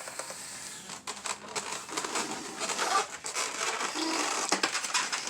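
Rustling and scraping with scattered clicks and knocks from things being handled while making brownies.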